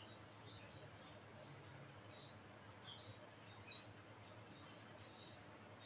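Faint, irregular soft squelches and squeaks of thick cake batter being folded with a silicone spatula in a glass bowl.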